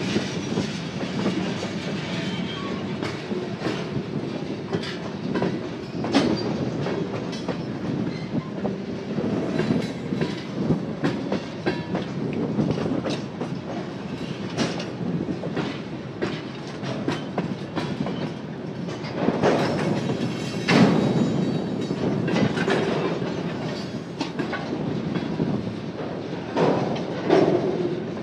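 Union Pacific local freight train rolling by during switching, its wheels clicking irregularly over rail joints under a continuous rumble, louder twice near the end.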